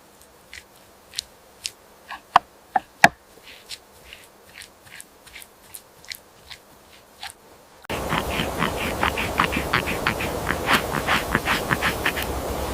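Food-preparation sounds: irregular sharp clicks and snips over a quiet background. About eight seconds in, the sound switches abruptly to a louder, steady outdoor noise with rapid crackling clicks, several a second.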